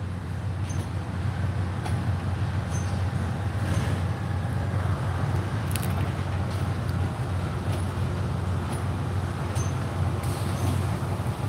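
Steady low rumble of a diesel train's engine running, with a few faint ticks.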